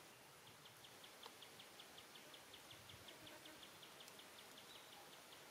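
Faint, even run of short high chirps, about six or seven a second, starting about half a second in and stopping near the end, over quiet outdoor background noise.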